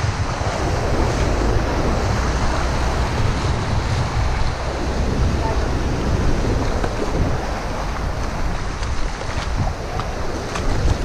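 Sea surf washing and foaming around legs wading in the shallows, with wind buffeting the microphone as a steady low rumble. A few small splashes near the end.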